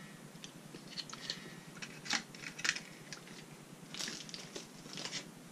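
Light, irregular clicks and taps of a small cardboard box and packaging being handled and set down.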